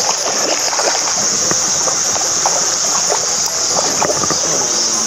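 A hooked black bass thrashing and splashing at the water surface again and again as it is played on a light spinning rod. A steady high insect buzz runs underneath.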